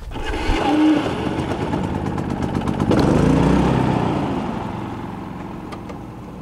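Portable Predator inverter generator's small gasoline engine running, louder from about three seconds in and easing off gradually toward the end.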